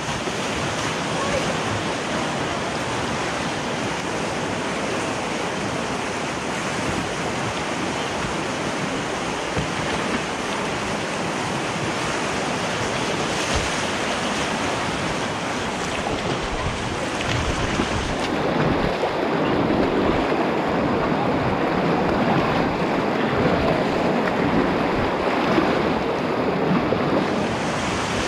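Steady rush of river water running through a rapid. About two-thirds of the way through it turns duller and a little louder.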